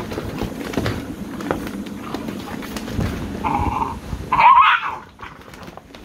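American Bully puppies play-fighting in a plastic kiddie pool, paws and claws scuffling and ticking on the plastic. There is a short yip about three and a half seconds in, then a louder, higher, wavering yelp about a second later.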